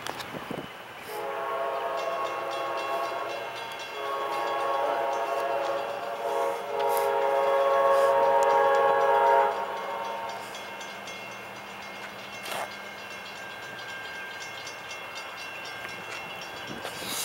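Multi-tone horn of an approaching Amtrak passenger locomotive, still far off, sounding the grade-crossing signal: two long blasts, a short one, then a final long blast, the loudest.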